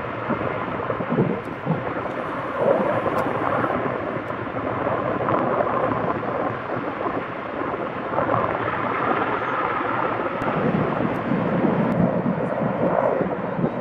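Sikorsky CH-54A Skycrane heavy-lift helicopter in flight, its main and tail rotors and twin turboshaft engines heard as a steady, rough noise that swells and eases slightly.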